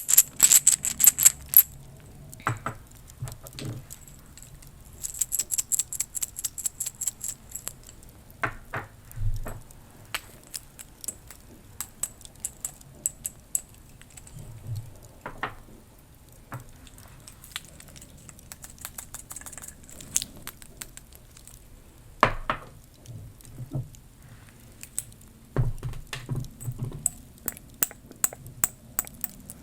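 Witch's-brew potion making with a cauldron, its utensils and ingredients: scattered clinks, taps and small crackles, with a quick run of fine crackling clicks from about five to eight seconds in and another cluster of taps near the end.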